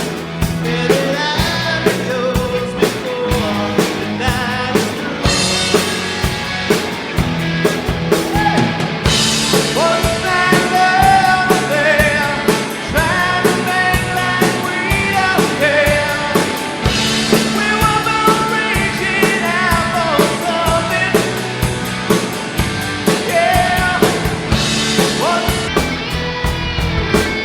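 Rock band playing live: drum kit keeping a steady beat under bass and guitars, with a lead vocal coming in about a third of the way through and cymbal crashes swelling in three passages.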